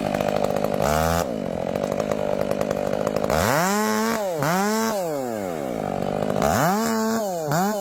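Engine of a wood-cutting saw, revving up and dropping back again several times in quick succession, with steadier running in between.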